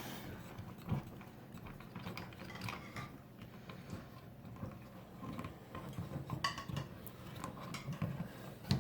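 Light clicks, taps and rattles of metal detector parts being handled and pushed together during assembly, with a sharper knock about a second in and a cluster of clicks later on.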